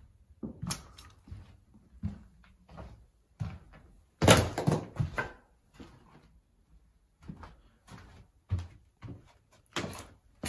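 Irregular footsteps and knocks on a floor scattered with fallen plaster and paint chips, with a louder cluster of knocks and clatter about four seconds in.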